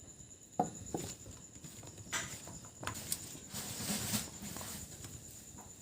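Sliced pointed gourd being mixed with a wet gram-flour and cornflour batter in a bowl: irregular soft taps and wet rustling as the slices are turned over.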